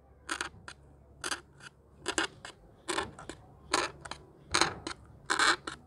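Wooden toothpick being pushed again and again through a white foam disposable plate to punch holes in it: about a dozen short, scratchy crunches at irregular spacing, two or three a second.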